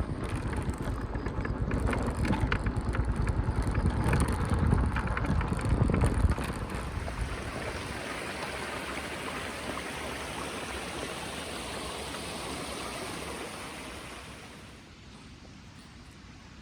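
Running water rushing, deep and rumbling with a dense crackle of splashes for the first six seconds, then settling into a steadier, lighter hiss that fades down about fourteen seconds in.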